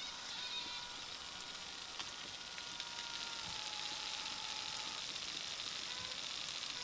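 Freshly twice-fried sweet potato tempura sizzling and crackling in a mesh strainer just out of the hot oil: a steady fine hiss dotted with small crackles, the sound of moisture escaping from the fried batter.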